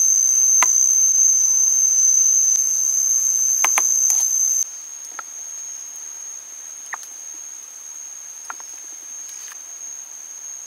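A steady high-pitched insect whine, one held tone that is loud for the first four and a half seconds, then drops to a lower level and carries on. Over it come a few light clinks of a metal spoon against the mortar, a quick pair about three and a half seconds in and single ones later on.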